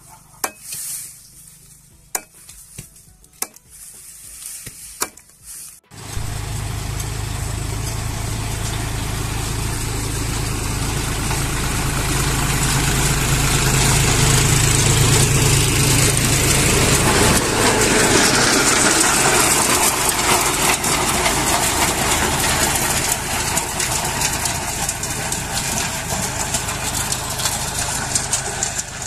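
A blade chopping red napier stems, about half a dozen sharp chops. About six seconds in, this gives way to a John Deere 5050 D tractor's diesel engine running under load as it pulls a rotary tiller through dry, ploughed soil: a loud, steady engine drone with a hiss of churned earth, growing louder as the tractor draws near.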